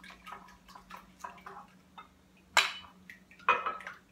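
Wire whisk ticking quickly against a glass mixing bowl while egg, sugar and bloomed yeast are whisked, then two sharp clinks of glass dishes being handled, about a second apart.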